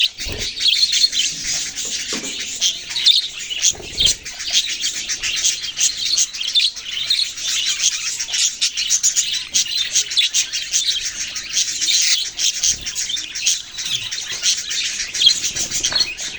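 Many small pet parrots chirping and chattering at once, a dense unbroken chorus of high chirps, with a couple of soft low knocks near the start and about four seconds in.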